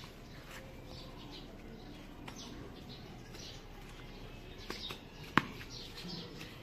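Birds chirping in short scattered calls, with a single sharp knock about five seconds in.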